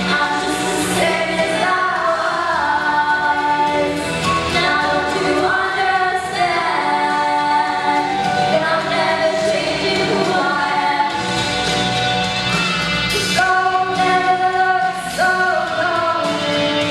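Two female voices singing a duet into handheld microphones, amplified over music; near the end one voice carries on alone.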